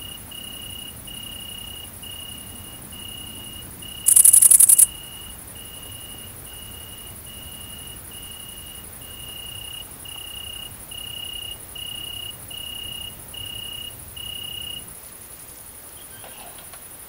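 Night insect chorus: a steady, very high-pitched buzzing song of great green bush-crickets, with a loud close burst of stridulation about four seconds in lasting under a second. Under it, another cricket repeats short, lower chirping notes about one and a half times a second, stopping shortly before the end.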